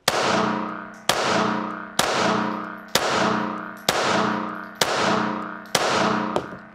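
Seven shots from a Remington RM380 .380 ACP pocket pistol, fired about one a second, each ringing on for most of a second in an indoor range. Seven shots empty the pistol's full load of a chambered round plus a full six-round magazine.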